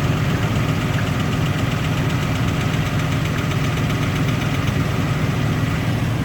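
1999 Nissan Pathfinder's VG33E 3.3-litre V6 idling steadily with a fast, light knocking over the running. It is the intermittent cold-engine knock that the owner thinks could be lifters, a rocker arm or an exhaust manifold gasket leak.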